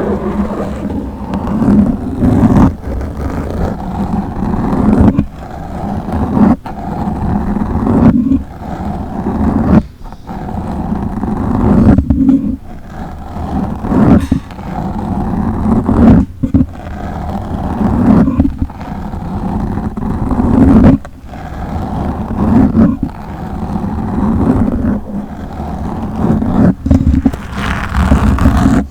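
A microphone being scratched directly on its body or grille: loud, deep scratching in repeating strokes about every two seconds, with sharp pops and crackles between them.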